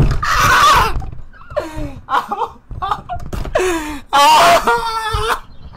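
A young man wailing and gasping in pain from the burn of an extremely hot chili chip: two long, loud, strained cries, one at the start and one about four seconds in, with shorter whimpering cries and gasps between them.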